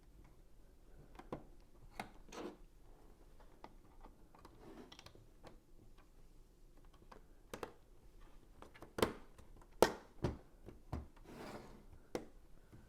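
Lego bricks being handled and pressed together: scattered small plastic clicks and light rustling, with the sharpest clicks about nine to ten and a half seconds in.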